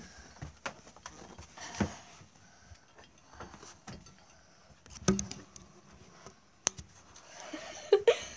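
Scattered knocks, clicks and rustles from rummaging through furniture and handling the camera phone, with the sharpest clicks about five seconds in and near the end.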